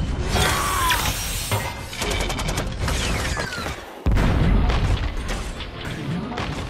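Action-film sound effects for a robot battle: a rapid volley of blaster-like shots, then a sudden heavy boom about four seconds in that slowly dies away, with background music underneath.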